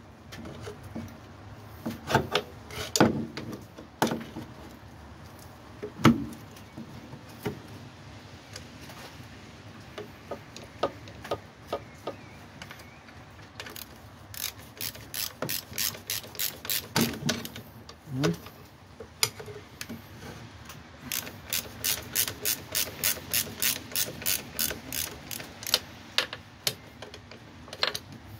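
Hand ratchet wrench clicking in two runs of steady clicks, about three to four a second, the longer run in the second half, as a bolt is turned. A few sharp knocks of tools on metal come in the first few seconds.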